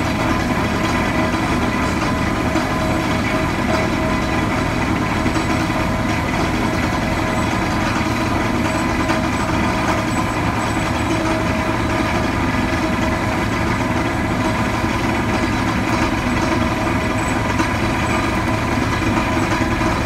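Engine of the hydraulic pile-driving rig idling steadily, a constant low drone with a few steady high tones over it, while the steel H-pile stands still.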